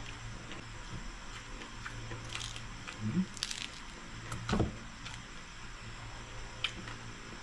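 Close-up eating sounds of crispy pata, deep-fried pork knuckle: chewing with scattered sharp crackles of crisp skin being bitten and torn by hand, and two louder low mouth noises about three and four and a half seconds in.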